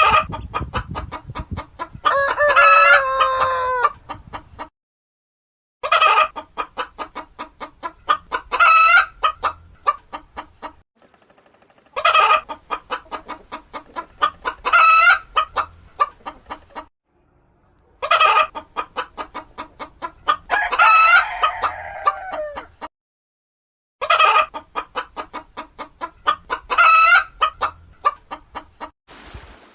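Chicken calling: a quick run of short clucks building into a longer drawn-out call, repeated five times with brief pauses between bouts.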